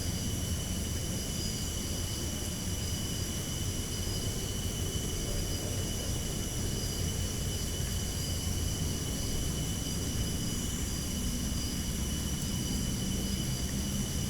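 Steady low rumble and hiss from an unattended CCTV camera's microphone, with several constant thin high-pitched tones over it and no distinct events.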